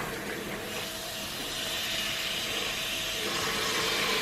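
Running water hissing steadily.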